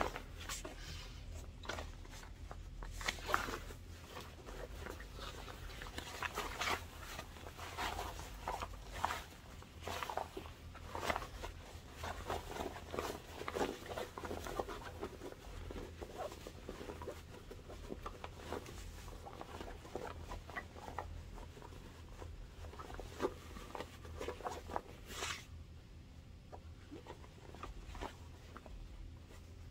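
Fabric rustling and scraping as a cotton bag with a WPC lining is handled, pushed out and shaped by hand, in irregular bursts. One sharper swish comes near the end, then the handling goes quieter.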